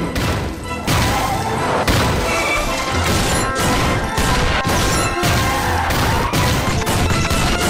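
Battle sound effects: rapid gunfire and explosions over background music.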